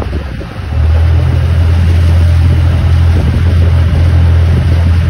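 Loud, steady low rumble on the deck of a boat at sea: wind buffeting the phone's microphone over the boat's engine drone, with a hiss of wind and water. It steps up louder about a second in.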